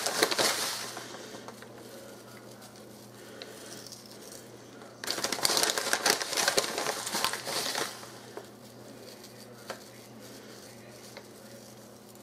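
Dry rustling and crinkling of panko breadcrumbs being sprinkled by hand. It comes in two bursts: one fading out in the first second, and a louder one lasting about three seconds midway.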